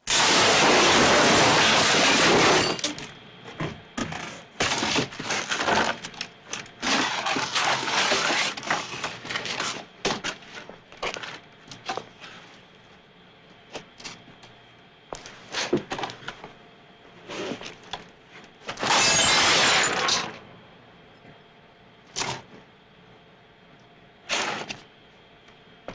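Foley crashes and impacts for a fight scene, performed live: a loud smashing crash of a table breaking at the start, then a run of sharp hits, cracks and scuffles, and a second long crash about three quarters of the way through.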